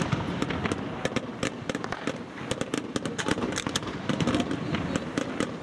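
Fireworks display going off: a dense, irregular run of pops and bangs, several a second, over a continuous rumble.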